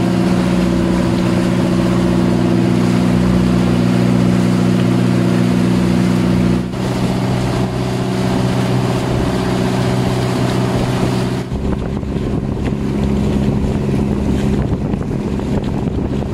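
Outrigger boat's engine running steadily under way, a low hum, with wind and water rushing past the hull. The engine note shifts slightly twice.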